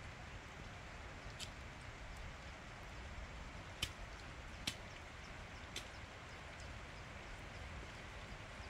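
Steady hiss of light rain, with four sharp clicks scattered through it, the two loudest near the middle.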